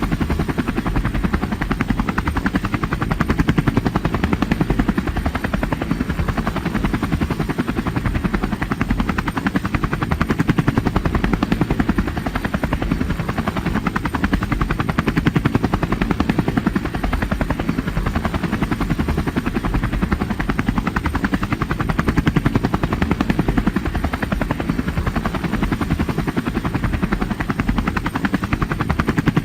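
Helicopter flying, its rotor giving a steady, fast, even chop.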